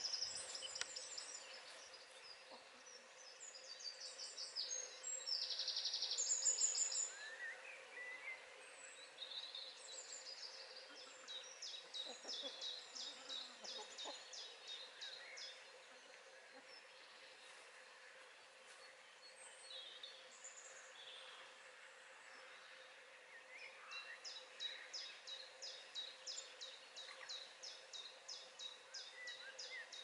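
Wild songbirds singing: a loud twittering phrase about five seconds in, then long runs of quick, high repeated notes, about four a second, in the middle and again over the last several seconds.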